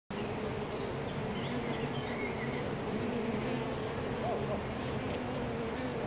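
Honeybees buzzing at the entrance of a top-bar hive: a steady, slightly wavering hum of many wings.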